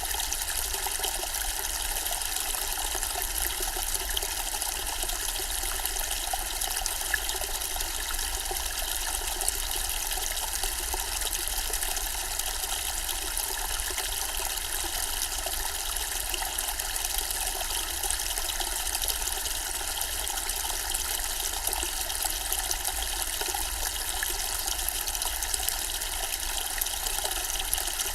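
Zen-style water fountain trickling steadily: an even, unbroken wash of falling and splashing water.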